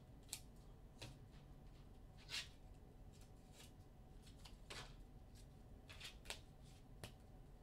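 Near silence: room tone with about eight faint, short clicks at irregular intervals.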